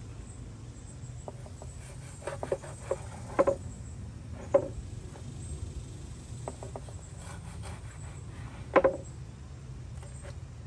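Cleaver knocking and tapping on a plastic cutting board as pieces of stingray are cut, a handful of scattered knocks with the loudest one late on, over a steady low hum.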